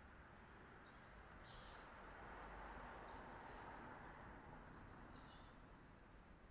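Faint, short, high bird chirps every second or two over a low steady outdoor background hum.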